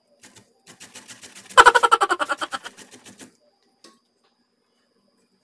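Sweet potato being grated on a flat metal hand grater: quick rasping strokes, about five or six a second, that stop a little past the midpoint. For the last second and a half of the strokes a loud, pitched metallic squeal pulses with each stroke.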